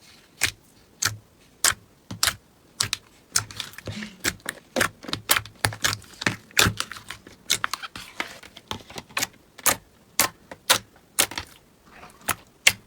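Crunchy slime being pressed and kneaded by hand: a string of sharp crackles and pops, roughly two a second, some in quick clusters.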